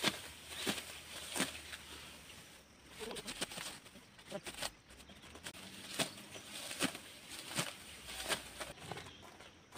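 Ripe rice stalks being cut by hand with a sickle: a crisp swishing cut roughly every three-quarters of a second, with rustling of the cut paddy in between.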